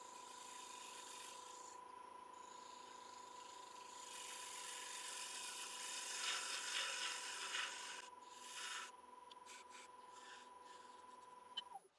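Wood lathe running with a steady motor whine while a turning tool cuts the thin stem of a wet cherry goblet, a scraping hiss that grows louder in the middle. The motor whine stops shortly before the end as the lathe is switched off.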